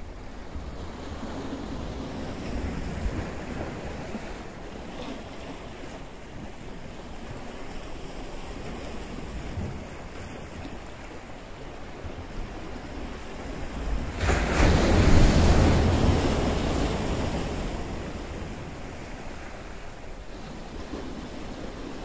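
Sea surf washing with wind buffeting the microphone, a steady rushing noise. About two-thirds of the way through, a much louder rush of surf and wind swells suddenly and fades away over a few seconds.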